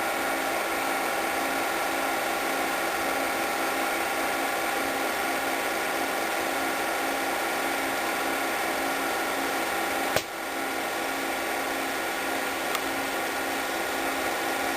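Steady mechanical whir of an 8mm film projector running, with a held hum and a faint regular pulsing underneath. One sharp click about ten seconds in.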